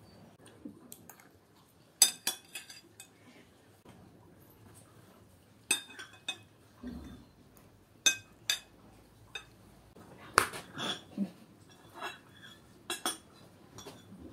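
Metal spoons clinking against ceramic bowls: a dozen or so sharp, irregular clinks, the loudest about two seconds in and again near the ten-second mark.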